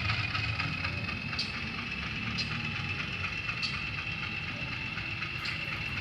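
HO-scale model of a CC206 diesel locomotive running with its digital sound decoder, giving a low diesel engine drone under a steady high whine. A few sharp clicks come at irregular intervals.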